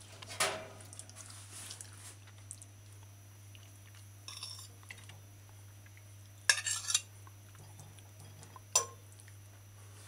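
A fork and china plates clinking and scraping as chicken is served onto a plate of potato salad: a few short clinks, the loudest cluster about six and a half seconds in and a sharp single clink near nine seconds.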